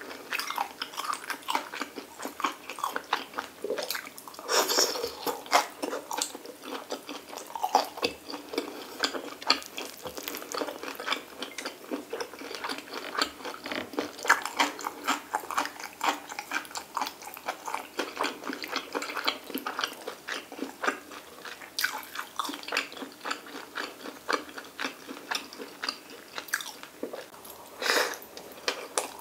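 Close chewing and biting sounds of a person eating kimchi stir-fry and rice: a dense run of small clicks and crunches, with louder bunches about five seconds in and near the end.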